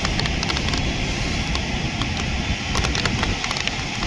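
Heavy rain falling, with many irregular sharp ticks of drops, over a low rumble of street traffic.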